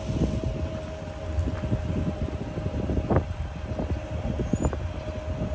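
Norfolk Southern train rolling past: a continuous low rumble with frequent short clanks and knocks from the wheels and cars, and a thin steady tone alongside that cuts off near the end.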